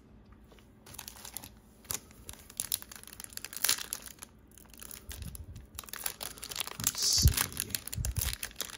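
Foil wrapper of a 2020 Donruss Optic hobby pack being torn open and crinkled by hand: a string of crackles starting about a second in and growing louder near the end, with a couple of dull bumps.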